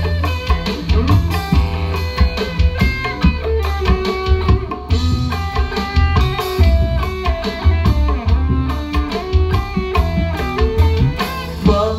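Live band instrumental: an electric guitar played through a multi-effects pedal picks a busy melodic lead, over hand drum and a steady low bass.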